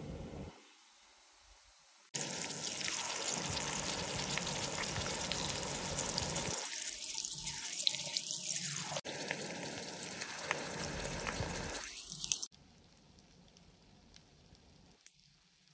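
Water running from a tap, a steady rushing hiss that starts and stops abruptly at cuts about two seconds in and about three seconds before the end.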